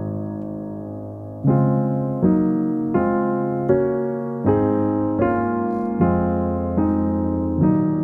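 Background piano music: a held chord, then slow chords struck evenly about every three-quarters of a second from about a second and a half in.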